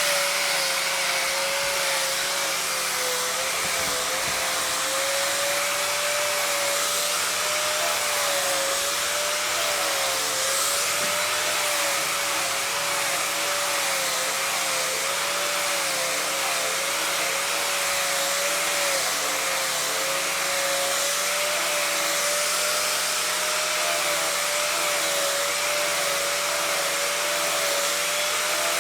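An electric motor running steadily, with a strong airy hiss and a slightly wavering mid-pitched whine.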